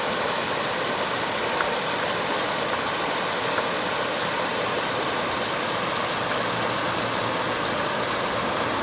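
Small waterfall spilling over rock into a shallow pool: a steady rush of falling and running water.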